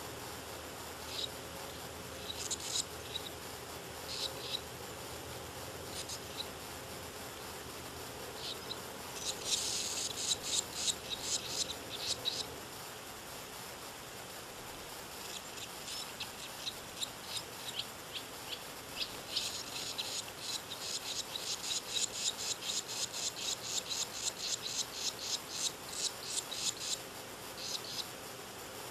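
Swallow nestlings begging: rapid, high-pitched chittering calls that come in short runs, with one burst about ten seconds in and a longer, louder run in the later part.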